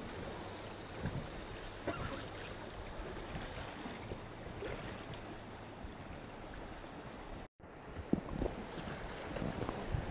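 River water rushing around an inflatable whitewater raft, with wind buffeting the microphone and a few light knocks. The sound cuts out for a moment about seven and a half seconds in and comes back a little louder.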